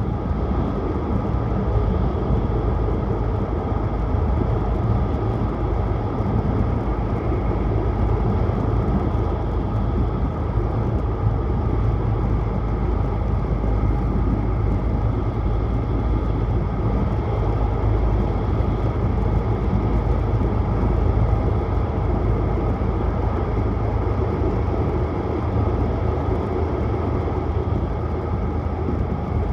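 Shinkansen train running at speed, heard inside the passenger car: a steady, even rumble of wheels, track and air rushing past.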